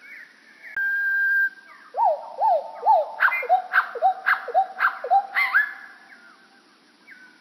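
Common nightingale song played back slowed about three times by time-stretching software. A held whistle gives way to a run of repeated swooping notes, about two a second, with sharp clicks over them, then the song fades out near the end.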